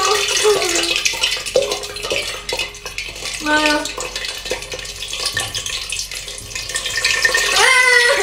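Geoduck siphon dipped into a glass of hot oil, the oil sizzling and crackling around it as it fries. A short high cry about halfway and another rising cry near the end.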